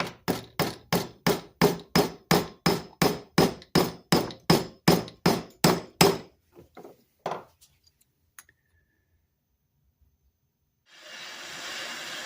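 Hammer striking a steel strip to bend it into a latch catch: about twenty steady blows, roughly three a second, then a few lighter taps. A steady hiss starts near the end.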